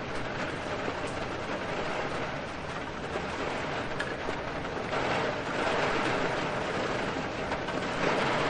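Steady heavy rain with wind, a dense hiss that swells louder about five seconds in and again near the end, like gusts driving the rain.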